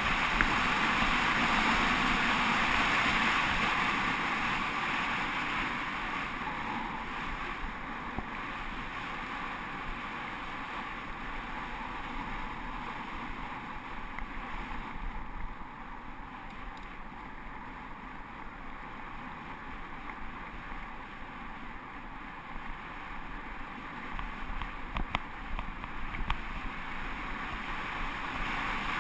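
Wind rushing over the camera microphone, mixed with tyre noise on loose gravel, as a bike descends a dirt road at speed. It is loudest for the first few seconds and then eases off, with a few sharp rattles from bumps near the end.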